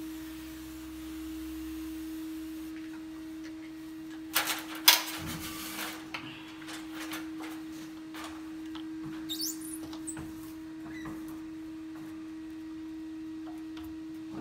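A steady hum runs throughout. About four to five seconds in, a hand-pump spray bottle squirts water onto the glass in a couple of sharp hissing sprays, and a brief rising squeak follows a few seconds later, as from a hand on wet glass.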